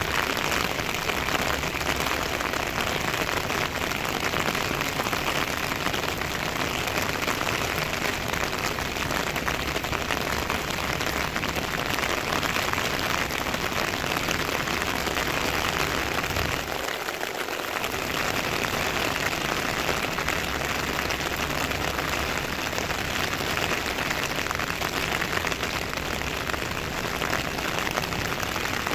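Heavy rain falling steadily on a wet road and on vehicles, a dense, even hiss with no let-up.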